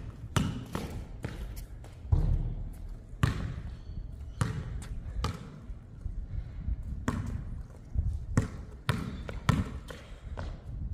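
Basketball bouncing on a hard court as it is dribbled, a string of sharp bounces at uneven intervals.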